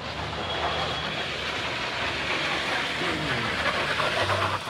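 Cable car gondola running, a steady mechanical rumble that grows a little louder toward the end.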